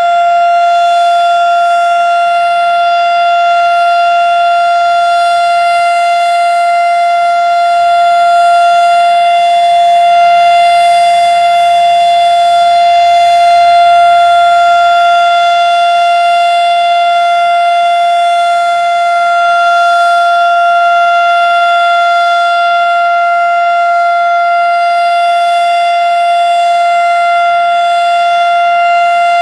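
Erick 2 hp fire siren sounding a steady full-alert tone: one held, unwavering pitch with slight swells in loudness.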